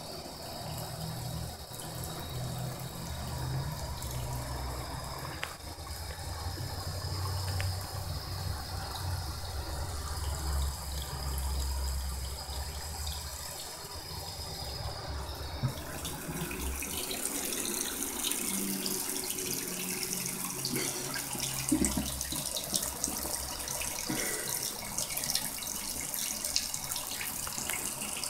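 Bathroom faucet running a thin steady stream into the sink, falling onto a cat lying in the bowl. The water hiss gets brighter and louder about halfway through, and a low rumble sits underneath during the first half.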